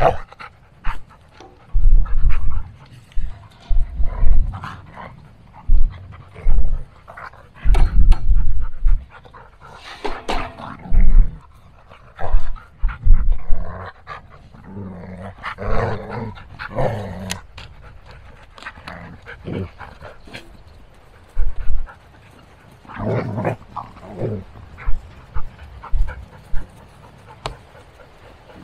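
A dog panting close by, scared of an approaching storm, with scattered loud, irregular low bumps.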